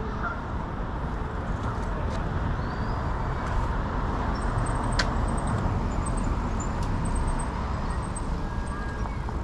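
Steady road traffic noise from passing cars, with a few sharp clicks and faint high-pitched chirps repeating through the second half.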